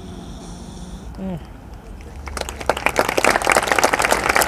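Stadium crowd applauding: clapping starts about halfway through and quickly becomes dense and steady. Before it, the stands are quiet apart from one brief voice about a second in.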